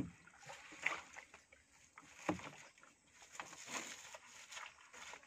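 Small boat in shallow water: a few dull knocks a second or so apart, with light splashing.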